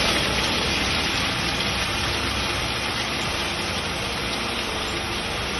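Ninja countertop blender running at speed, grinding a jarful of nuts and dried fruit into a coarse meal: a loud, steady grinding whir.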